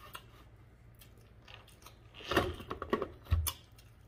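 Close-miked eating sounds of a person chewing and biting into seafood boil. The first half is quiet, then a cluster of sharp clicks and crackles comes a little over two seconds in, with a low thump just after.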